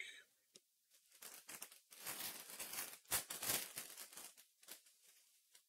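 Foil trading-card pack wrapper crinkling and tearing as it is pulled open by hand. The sound is faint and comes in short, uneven stretches of crackle for about three seconds.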